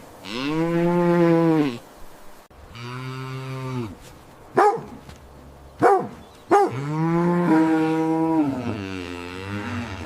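Cattle mooing: long drawn-out moos, each rising and falling in pitch, with three short, sharp calls in the middle. The last moo wavers as it fades out near the end.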